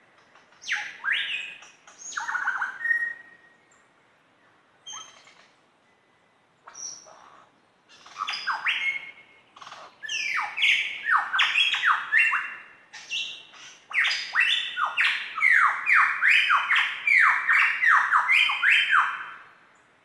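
Superb lyrebird singing: scattered whistled calls at first, then from about halfway a fast run of loud, downward-sweeping notes, several a second, stopping just before the end.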